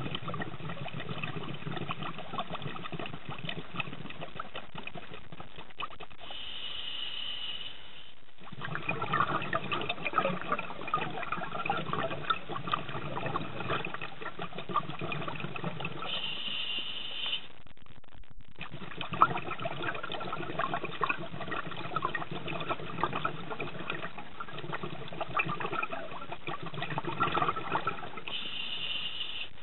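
Scuba diver breathing through a regulator, heard underwater: a short hissing inhale about every ten seconds, three in all, and between them the exhaled bubbles crackling and bubbling.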